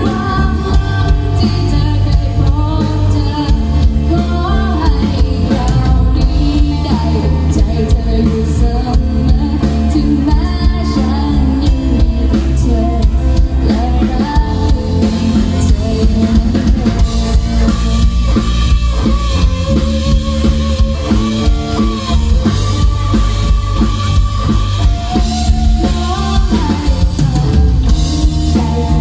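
Live band playing a rock-style song, loud: a woman singing over electric guitar and a drum kit.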